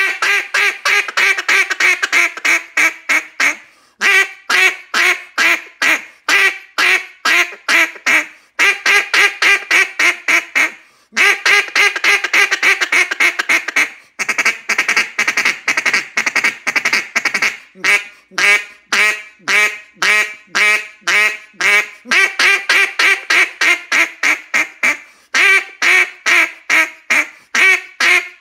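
Rich-N-Tone (RNT) Mondo cutdown duck call with a rim cut, blown in long runs of quacks and rapid chatter and feed calling, separated by brief pauses every few seconds.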